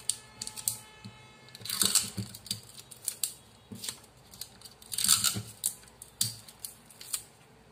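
A paper strip being pressed and rubbed flat onto a brown paper pattern by hand: irregular rustling and rubbing, with two louder swishes about two seconds and about five seconds in, and small taps and clicks between.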